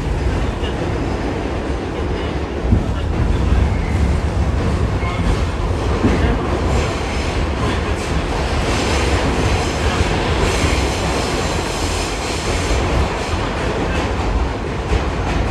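R46 subway train running at speed, heard from inside the car: a steady rumble and rattle of wheels on the track with clicking over rail joints, and a faint high whine through the middle stretch.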